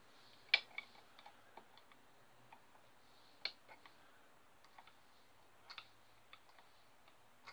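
Faint, irregular clicks and ticks of a small screwdriver tip working the plastic impeller of a Thetford cassette-toilet flush pump, the impeller turning only very stiffly because it is clogged with gunge. The sharpest click comes about half a second in.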